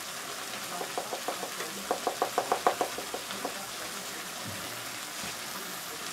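A quick run of light, slightly ringing knocks, about seven a second, from a plastic spice shaker being shaken and tapped over a steel bowl. They start about a second in, are loudest in the middle and stop about halfway through.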